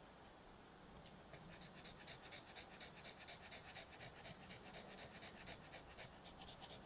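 Small long-haired dog panting quickly and faintly, about five breaths a second, starting about a second in.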